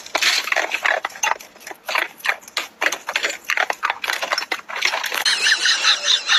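A dog biting and crunching icicles, with rapid, irregular sharp cracks and crunches. Near the end a different sound takes over: a run of repeated high chirps.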